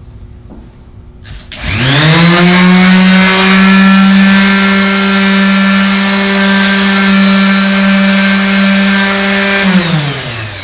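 Electric palm sander spinning up with a rising whine, then running steadily while it abrades the faces of a plastic-face and a stainless steel inductive proximity sensor. Near the end it is switched off and winds down with a falling pitch.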